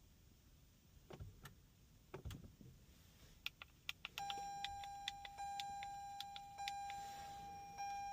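A few light clicks and taps, then about four seconds in a steady high electronic beep tone starts and holds without a break.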